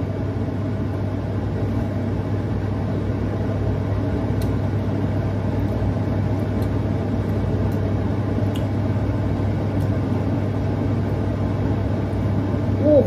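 A kitchen appliance fan running with a steady whir and a low hum.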